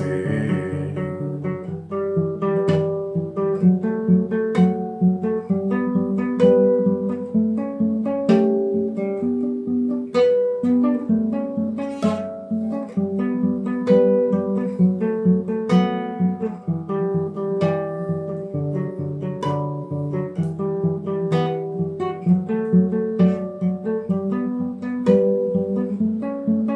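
Acoustic guitar playing alone, plucking a steady stream of notes and chords: the instrumental close of a song, with no singing.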